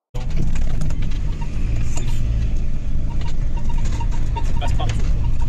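Renault Trucks Sherpa military vehicle heard from inside the cab while driving off-road over rocky ground: a steady low diesel drone with frequent knocks and rattles from the cab. It starts abruptly right at the beginning.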